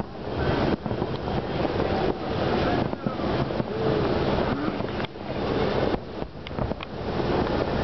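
Large fireworks display: many aerial shells bursting in quick succession, merging into a continuous rumble with sharper bangs standing out.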